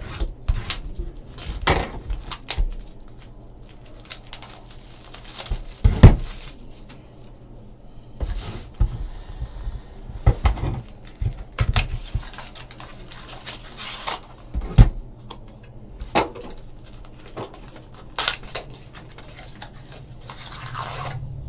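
Cardboard trading-card mini box and wrapped card packs being handled and opened on a table: irregular taps, knocks and rustles, the loudest knocks about six and fifteen seconds in.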